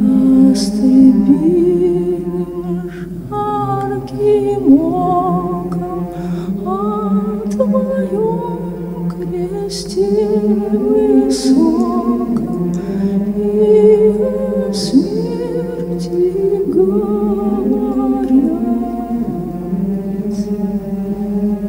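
Wordless vocal music: several voices overlap in long, held notes with vibrato, each note sliding in, over a steady low drone.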